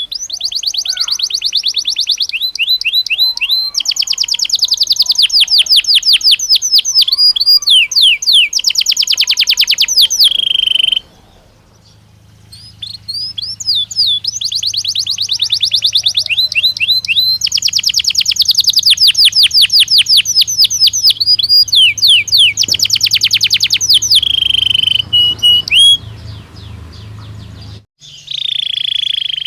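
Belgian canary singing loud, fast rolling trills of rapidly repeated high notes, in long phrases. The song breaks off for about a second and a half midway, then resumes, with a faint low hum beneath it.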